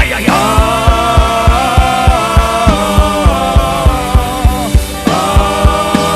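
Worship music: long held chords over a steady drum beat of about three hits a second, with the chord changing about five seconds in.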